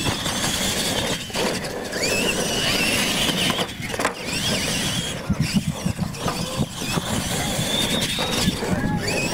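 Electric radio-controlled monster trucks racing, their motors and gears giving a high whine that rises and falls with the throttle over the rush of tyres on dirt, with a few brief knocks as the trucks hit ramps and land.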